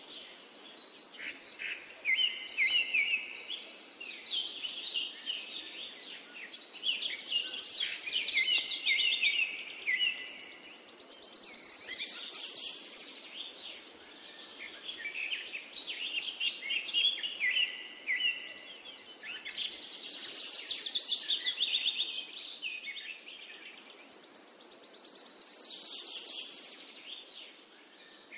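Songbirds chirping and trilling over a faint hiss, with a high, buzzy trill now and then. The pattern of calls seems to repeat about every fourteen seconds, like a looped recording.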